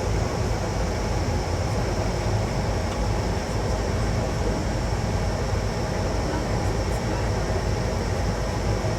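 Steady rush of airflow and engine noise aboard an Airbus A220-300 during its landing, with a strong low rumble and no distinct events.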